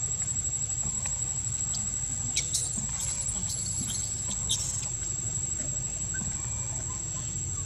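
A few brief, high squeaks from a baby long-tailed macaque, bunched between about two and a half and four and a half seconds in. Under them run a steady high insect buzz and a low rumble.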